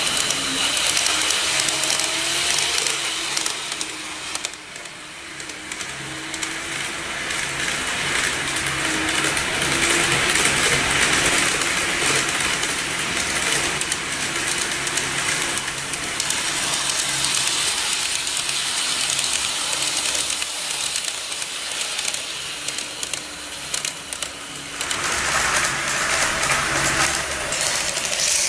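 KATO N-scale model electric train running on the layout track: a steady whirr from its motor mixed with the rumble of its wheels on the rails, louder for a few seconds near the end.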